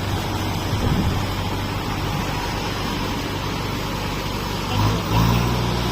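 Steady noise of motor vehicles running on a road under repair. About five seconds in, a louder engine hum sets in close by.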